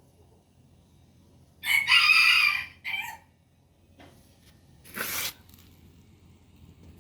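A rooster crowing once, loud and close, in a long call with a short final note. A few seconds later comes a brief noisy rasp.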